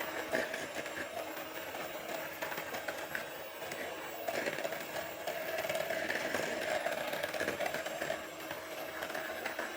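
Electric mixer running steadily, its beaters working cake batter in a bowl with small clicks and scrapes.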